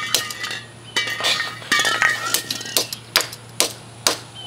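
Repeated sharp knocking blows on a hard object, about two a second, with a jumble of clinking and scraping in the middle.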